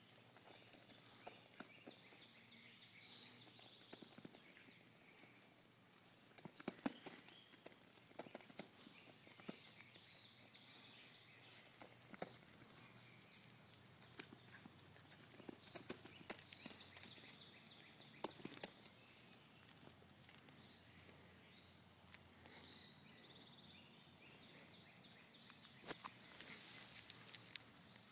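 Faint, scattered clicks and rustles of small terriers' paws scampering through dry leaves and claws tapping on concrete, over quiet outdoor background.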